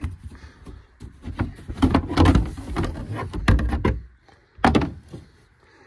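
Plastic hood panel of a Polaris Ranger UTV being unlatched and pulled off: a run of knocks and rattles, then one sharp knock near the end.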